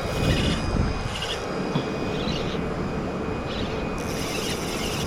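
Steady low rumble of outdoor background noise, with short, faint high hisses now and then.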